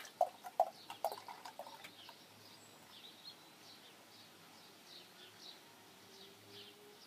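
Beer glugging out of a glass bottle into a pint glass, a quick run of glugs over the first two seconds, then a quieter pour. A bird chirps repeatedly in the background, short falling notes a couple of times a second.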